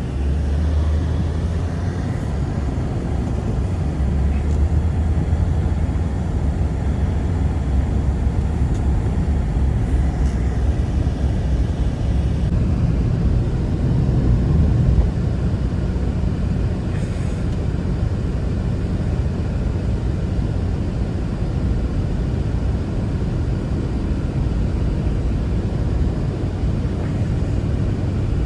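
Steady, loud, low rumbling wind of a blizzard, with the gusts buffeting the microphone.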